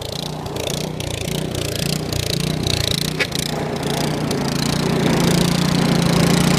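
Small walk-behind snowblower's engine running steadily with a low hum, growing louder toward the end as it comes closer.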